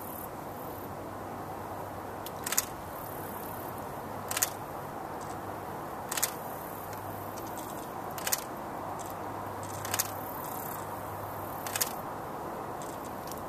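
Six short, sharp clicks at an even pace of about one every two seconds, over a steady background hiss and a faint low hum.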